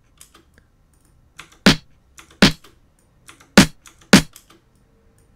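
Short, sharp percussive drum-sample hits played back from a sequencer timeline through a FabFilter Micro filter plugin at its default settings. There are four loud hits in two pairs, each dying away quickly.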